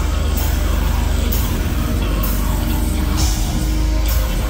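Deathcore band playing live at full volume: heavy distorted guitars over rapid kick drumming, with cymbal crashes about once a second.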